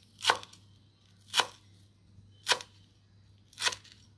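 Broad-bladed kitchen knife chopping coriander leaves on a wooden cutting board: four even chops, about one a second.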